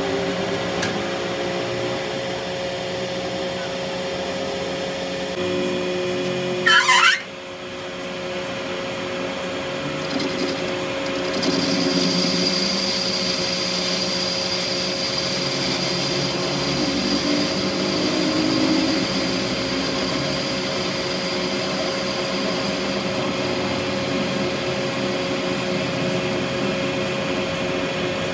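Workshop machine motor running steadily with a constant hum, broken about seven seconds in by a short, loud, high-pitched screech; a little later a steady high whine joins the hum.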